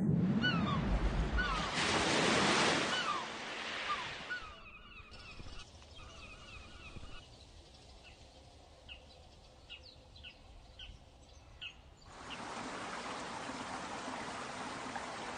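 Rushing water-like noise with repeated short, falling bird chirps over it. It drops away after about four seconds, leaving scattered chirps, and the rushing noise comes back steadily about twelve seconds in.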